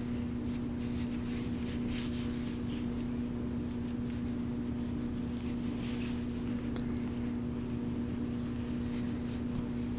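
A steady low hum, with a few faint soft rustles of bulky yarn being pulled through crochet stitches with a plastic yarn needle.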